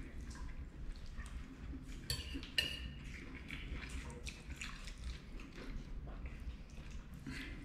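Metal fork scraping and clinking against a ceramic plate, with a few sharper clinks about two seconds in, along with wet eating sounds.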